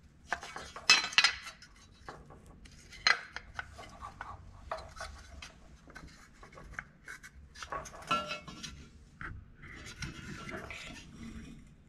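A metal headlight bucket and an LED headlight being handled and fitted together: scattered clicks, clinks and rubbing, sharpest about a second in and again around three and eight seconds.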